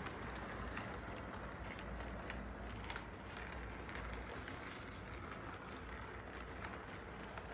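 Electric toy model train running along its track: a steady rolling hiss and rumble with scattered light clicks.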